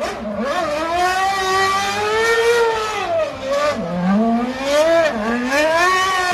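Renault V8 engine of the 2011 Red Bull RB7 Formula 1 car revving, its pitch rising and dropping again and again, with sharp drops about a second in, near the middle and about five seconds in.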